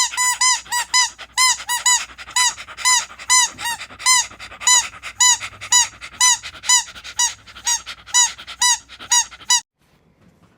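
A squeaky toy being chewed by a dog: a quick run of about two dozen short, high squeaks, two or three a second, that stops abruptly near the end.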